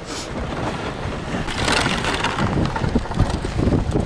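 A coffin dragged on a rope over packed snow, a continuous scraping crunch that grows louder about one and a half seconds in.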